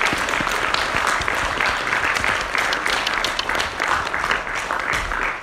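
Audience applauding: many hands clapping at an even level throughout.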